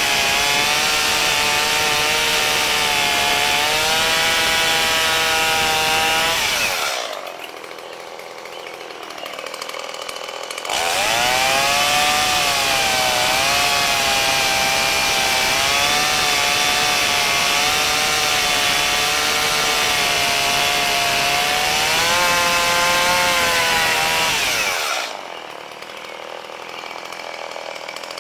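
Two-stroke gas chainsaw cutting into a log at full throttle, its pitch dipping and rising under load. It drops to idle about seven seconds in, revs back up to cut again about four seconds later, and falls back to idle near the end.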